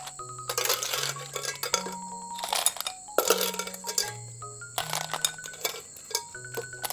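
Cooked snail shells clicking and clinking against each other and a ceramic bowl as a metal spoon stirs them, many short sharp clicks. Background music with a bass line stepping from note to note about once a second runs underneath.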